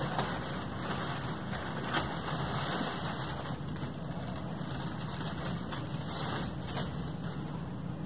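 Crumpled wrapping paper and tissue paper rustling and crinkling steadily, with sharper crackles now and then as the pile is pushed aside.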